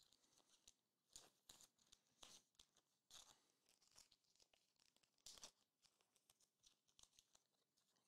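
Near silence, with faint scattered rustles and clicks of trading cards and clear plastic card sleeves being handled, a few slightly louder than the rest.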